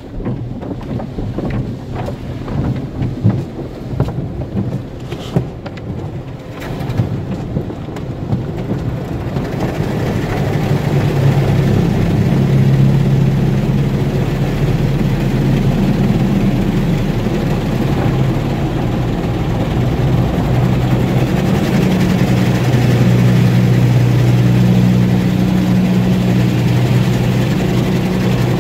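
Automatic tunnel car wash heard from inside the car. Water jets spray and patter irregularly on the body and windshield. From about ten seconds in this becomes a steadier, louder rush with a low steady hum as the foam and cloth brushes work over the car.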